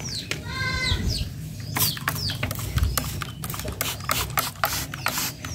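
Hand trigger spray bottle squirting water over a prinia in its wire cage: a quick run of short, sharp spray hisses, several a second, starting about two seconds in, with short falling bird chirps throughout.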